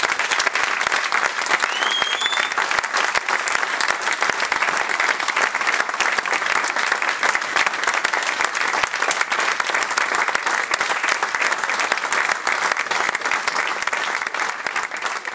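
Roomful of guests applauding: dense, steady clapping, with a short rising tone about two seconds in. The clapping starts to die away near the end.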